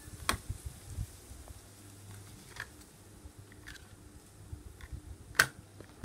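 Scattered plastic clicks of a handheld universal remote's buttons being pressed and the recording phone being handled, the loudest a sharp knock about five seconds in, over the low steady hum of a Sharp mini split air conditioner running.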